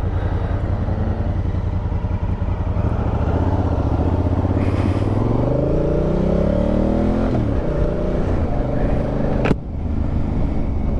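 2019 Honda Africa Twin CRF1000L's parallel-twin engine running low, then rising in pitch for about three seconds as it accelerates. The pitch drops at an upshift about seven seconds in, and the engine runs steady after. A single sharp click about nine and a half seconds in.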